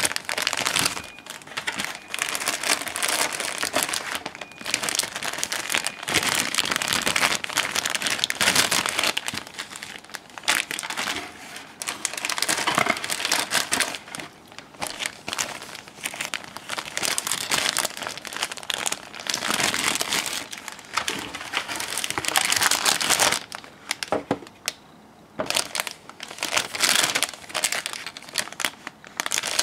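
Clear plastic bags holding model-kit parts on their runners crinkling as they are handled, in irregular bursts with a couple of short lulls.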